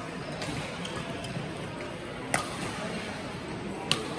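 Badminton racket striking the shuttlecock twice during a rally, two sharp pings about a second and a half apart, over steady background noise in the hall.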